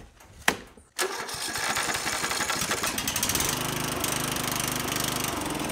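Riding lawn mower's Briggs & Stratton engine: a sharp click about half a second in, then the engine fires up about a second in and runs steadily.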